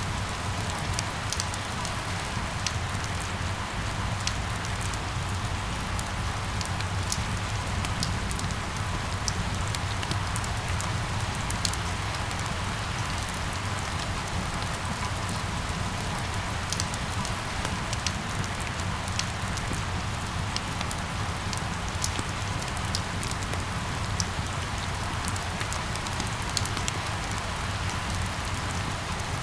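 Steady rain falling, with scattered sharp ticks of single drops over a low, steady rumble.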